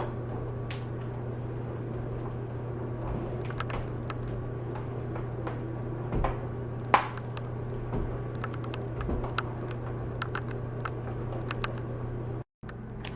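Plastic laptop screen bezel being pressed back onto the lid, its clips clicking and snapping into place with scattered light knocks, one sharper snap about seven seconds in, over a steady low hum.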